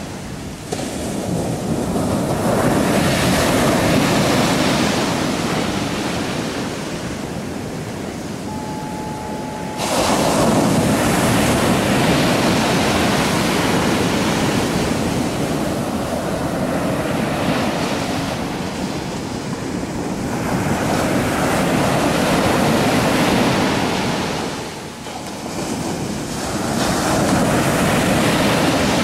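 Atlantic surf breaking and washing ashore, an even rush that swells and fades every several seconds. The sound changes abruptly about ten seconds in.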